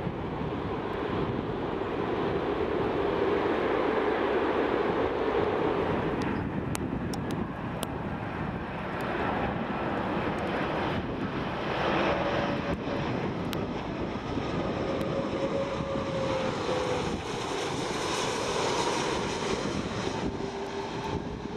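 Jet noise from a four-engine airliner climbing away after takeoff. About six seconds in, it gives way to an Airbus A330-200 on final approach: a steady engine whine whose pitch drifts slowly down as the plane passes.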